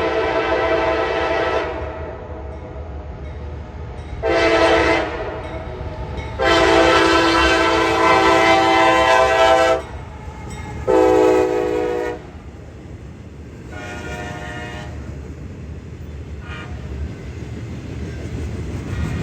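Nathan K5LA five-chime air horn on a GE AC44CW locomotive blowing a crossing sequence: a long blast ending about two seconds in, a short one around four and a half seconds, a long one of about three seconds, and a shorter one near eleven seconds. A fainter horn sound follows around fourteen seconds, over the steady low rumble of the train.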